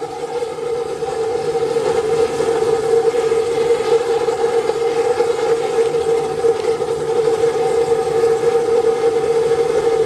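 Home-made oil spray burner running at full flame: a steady rush of burning spray and air with a constant hum-like tone over it, growing a little louder in the first couple of seconds.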